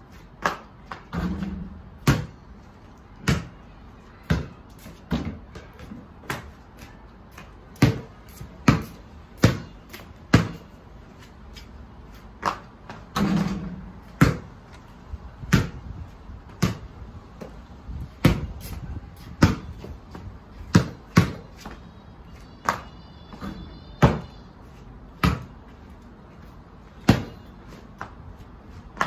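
Basketball bouncing on patio paving and striking the hoop, a sharp smack every second or so, with a few duller, deeper thuds.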